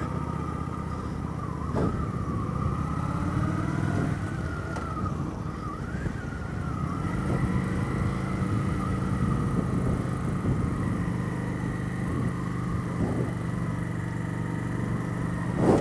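Suzuki GW250 motorcycle's parallel-twin engine running at low, fairly steady revs.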